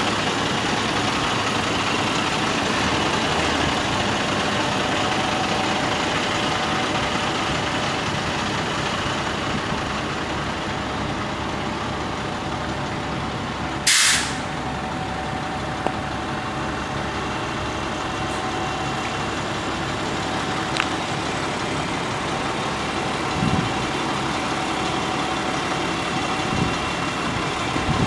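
International DT530E 8.7-litre inline-six diesel of a 1999 International 4900 dump truck running steadily. About halfway through comes one short, loud hiss of air from the air brakes.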